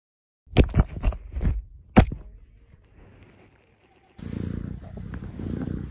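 A few sharp knocks and scrapes in the first two seconds, then about four seconds in a domestic cat starts purring, loud and close to the microphone as if pressed against its fur.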